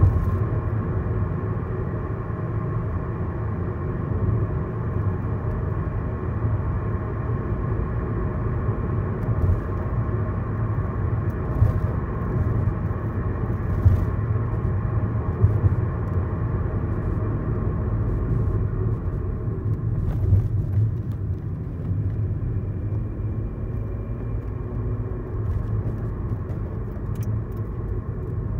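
Lexus IS300's 2JZ-GE inline-six, breathing through a Flowmaster resonator and the stock muffler, running with a steady low rumble. A few faint knocks come through around the middle.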